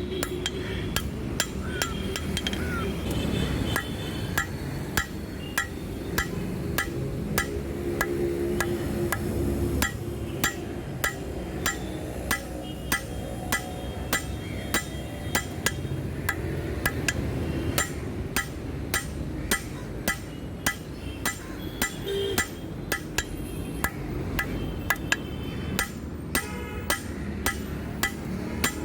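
Hand hammer striking steel on an anvil in a steady rhythm of about two blows a second, each blow ringing briefly: hot forging of a steel spanner being drawn out into a knife blade.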